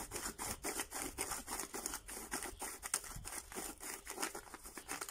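Hand pepper mill grinding black peppercorns, a fast steady run of crunching clicks as its top is twisted.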